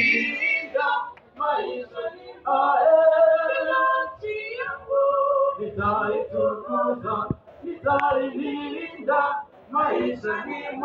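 A group of voices singing a patriotic song together, in phrases of held notes with short breaks between them.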